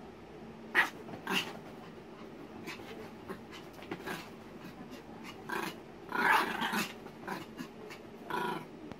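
Pomeranian puppy playing wildly on a bed, giving short growls and scrabbling on the bedding in a string of uneven bursts, the longest about six seconds in.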